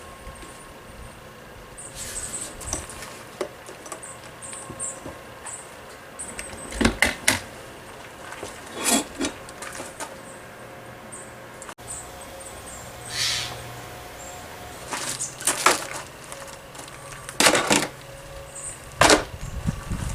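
Scattered, irregular knocks, clicks and rattles of hands handling parts and tools while a diesel heater test rig is put together, with a short scrape or rustle about thirteen seconds in.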